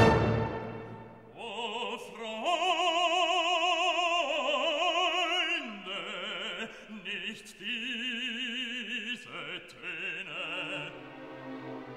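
Background music: an operatic voice sings a string of long held notes with a wide, even vibrato, starting about a second in and fading out near the end.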